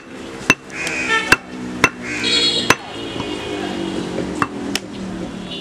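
A butcher's cleaver chopping goat meat on a wooden log chopping block: about seven sharp chops at irregular spacing, some close together in pairs.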